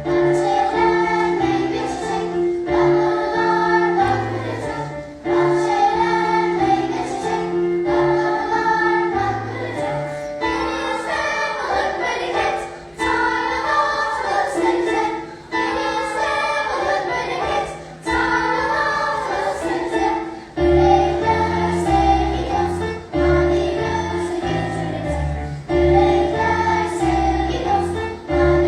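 Children's choir singing a melody over instrumental accompaniment with a low bass line.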